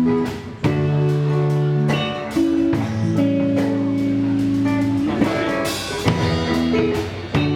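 Rock band playing an instrumental passage: sustained guitar chords changing every second or two over drums.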